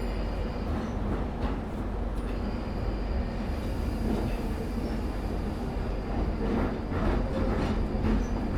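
London Underground tube train running between stations, heard from inside the carriage: a steady low rumble of wheels and running gear with scattered clicks and knocks, and a faint high whine through the middle.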